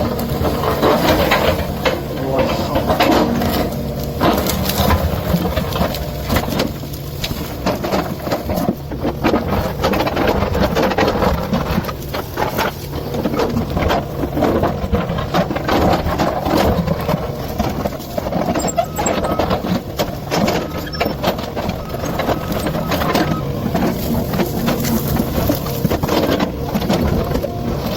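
Excavator engine running under load, with frequent cracks, crunches and knocks of wood and rock as the bucket tears out trees and shifts boulders.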